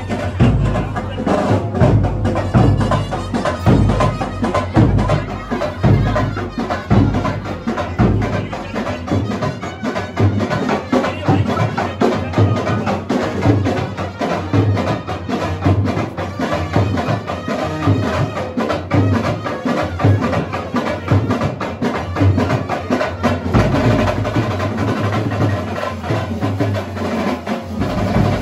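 Loud street band music with drums and percussion keeping a steady, fast beat. A deep bass drum stands out for the first several seconds.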